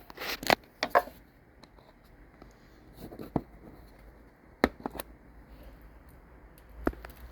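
Sharp plastic clicks and knocks, about six spread unevenly, with softer handling noise between, as push-in plastic clips are pressed and levered out of a motorcycle's fairing panels.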